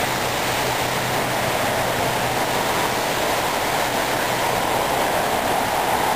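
Steady roar of rushing water from a waterfall.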